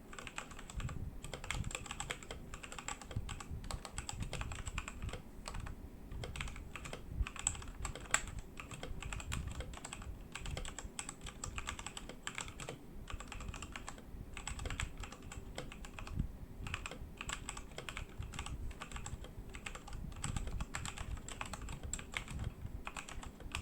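Fast, continuous typing on a Redragon K617 60% mechanical keyboard with Outemu Red linear switches: a dense patter of keystrokes, broken by a few brief pauses.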